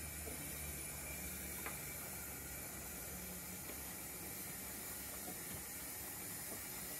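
Steady faint hiss with a few light clicks as an O gauge model train of coal wagons and a van rolls slowly over the track.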